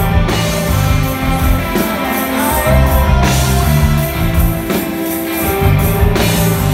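Rock band playing live: electric guitars, bass and a drum kit, loud and steady, with drum hits coming through regularly.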